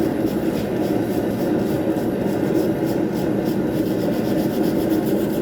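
A blacksmith's forge running: a steady, low rushing noise that holds level, with no distinct hammer strikes.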